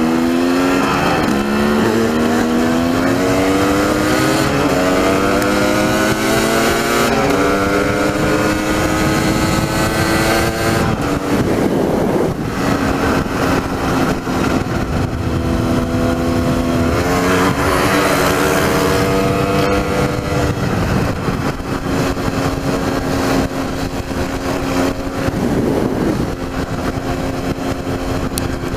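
Dirt bike engine accelerating hard, its pitch climbing and then dropping at each of about four upshifts in the first twelve seconds, then running at a fairly steady cruising pitch.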